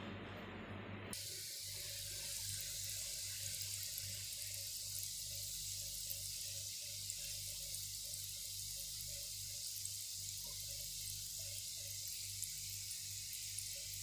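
Balushahi dough rings deep-frying in hot oil: a steady sizzling hiss with small crackles, starting about a second in, over a low hum.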